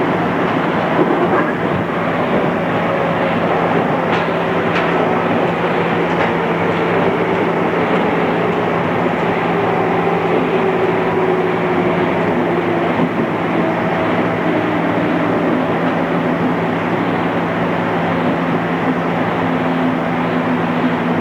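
Running noise inside a JR East 211 series electric train car, with a steady hum under the rail and wheel noise. The traction motor and gear whine falls slowly in pitch as the train slows down.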